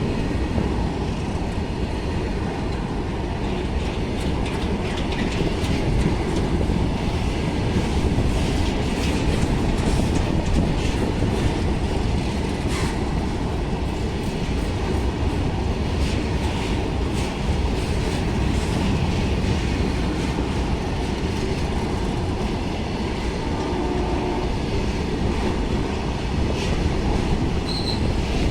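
A freight train running past at speed: the wagons make steady rolling noise, and the wheels clack over the rail joints.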